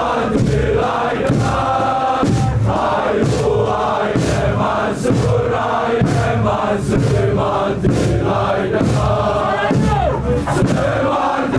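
A large crowd of football supporters chanting in unison, led through a megaphone, over a regular beat.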